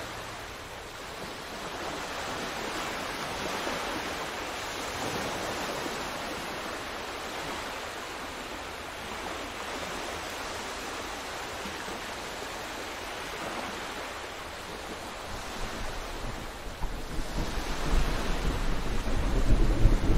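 Atlantic storm-swell surf breaking, a steady wash of noise with wind on the microphone. A deep low rumble builds up near the end and becomes the loudest sound.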